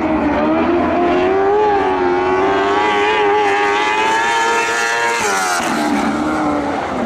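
Sprint car engine running hard on a dirt track, its pitch climbing steadily as it accelerates, then falling quickly about five seconds in.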